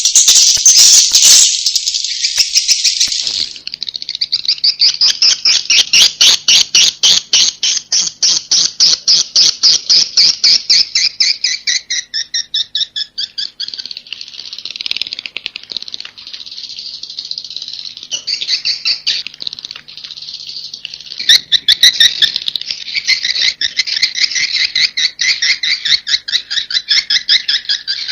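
Edible-nest swiftlets twittering in a dense chorus of high chirps and clicks, with a stretch of fast, evenly spaced chirps in the first half. This is a recorded 'inap' roosting call, the kind played in swiftlet houses to draw birds in to roost.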